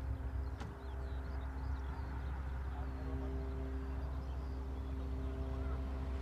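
A steady low rumble with a constant engine hum that holds one pitch, as from an idling engine, with faint bird chirps over it. A single sharp click comes just over half a second in.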